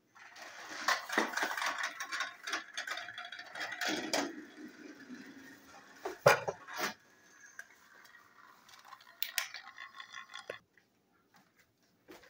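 Battery-powered TrackMaster toy train motors whirring, with gears and plastic wheels clattering on plastic track. There is a sharp plastic clack about six seconds in, and the whirring cuts off suddenly near the end.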